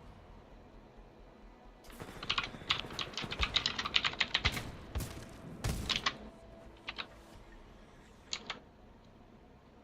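Mechanical keyboard with clicky Gateron Blue switches being typed on: a quick run of keystrokes starting about two seconds in and lasting a couple of seconds, then a few scattered single keypresses, the last one near the end.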